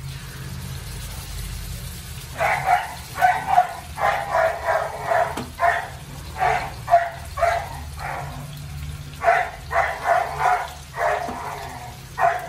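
A dog barking over and over, about two barks a second, starting a couple of seconds in with a short pause partway through.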